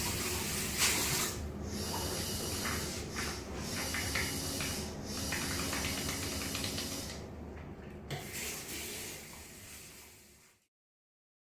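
Water running from a sensor-activated faucet as hands are washed under it, a steady hiss of the stream broken briefly a few times. It cuts out about seven seconds in, comes back weaker, then fades away near the end.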